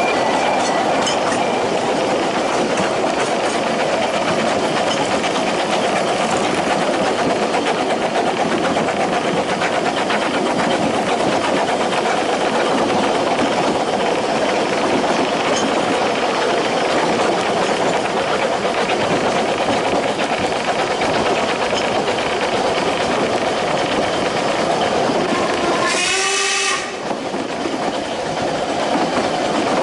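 Ffestiniog Railway narrow-gauge train running along the track, a steady rumble with clicking wheels over the rail joints. A brief pitched sound cuts in about three seconds before the end.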